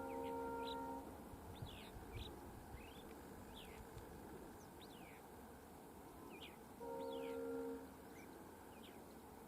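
Diesel locomotive's multi-tone air horn sounding two blasts of about a second each, the first ending about a second in and the second about seven seconds in, faint. Birds chirp throughout with quick falling calls.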